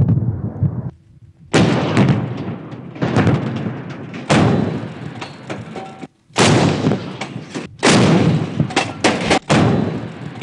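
Brief low rotor rumble of attack helicopters, then a run of heavy artillery blasts from truck-mounted guns firing and shells exploding. The blasts come about one every second or two, each sudden with a long rumbling decay.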